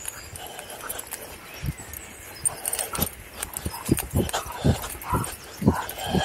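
Footsteps thudding at a walking pace on a grass path, about two a second and plainest in the second half, with a young English springer spaniel on a lead whining softly now and then as it pulls ahead.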